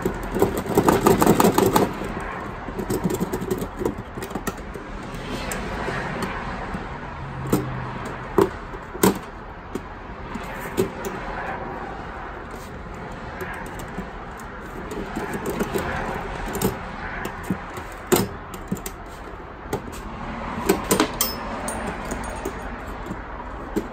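Knife blade prying at the lid seam of a locked steel file box, metal scraping and clicking against metal as the lid is forced. A quick rattling run in the first two seconds, then scattered sharp clicks.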